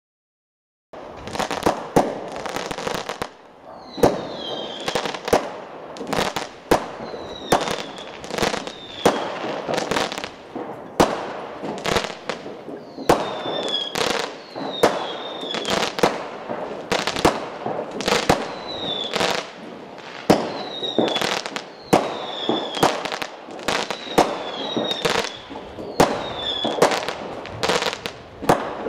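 A New Year fireworks display: sharp bangs of aerial shells bursting every second or so over a steady background of more distant bangs and crackle, with short falling whistles among them. It starts about a second in.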